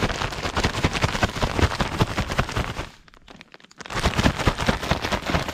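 Plastic zip-top bag of fish pieces and coating mix being shaken hard: fast, irregular crinkling and rattling. It stops briefly about three seconds in, then starts again.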